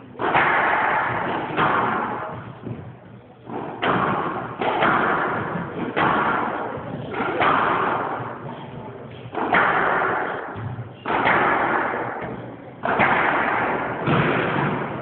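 Squash rally: hard smacks of racket on ball and ball on the court walls, about one a second, each ringing out with the echo of the enclosed court.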